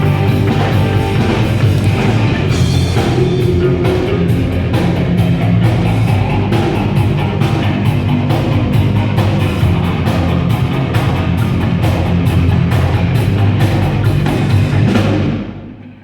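Live rock band playing loud, heavy music with drums and guitars. The sound drops away sharply near the end.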